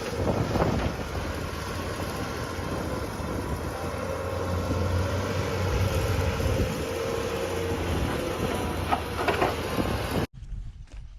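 A heavy machine's engine running steadily, with mechanical noise over a low hum. It cuts off abruptly near the end, leaving quieter, scattered sounds.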